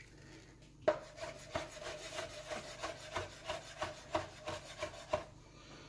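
Chef's knife dicing soft sliced pimentos on a plastic cutting board: a run of light knocks, about three a second, starting about a second in and stopping near the end.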